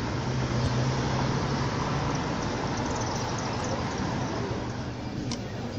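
Steady road traffic noise, with a low hum during the first couple of seconds.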